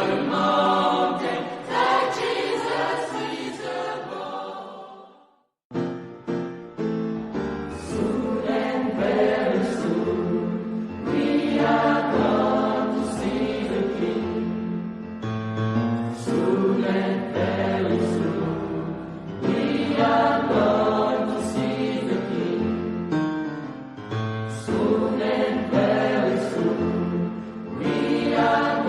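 A choir singing sacred music. One piece fades out about five seconds in; after a brief silence a new choral piece with a low accompanying bass line begins.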